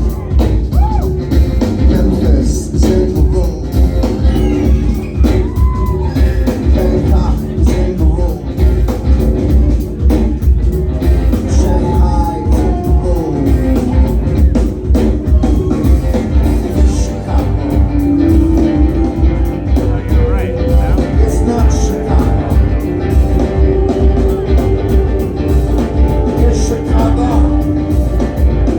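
Live rock band playing a song: a loud, steady beat with a heavy bass end, and sung vocal lines coming in and out over it.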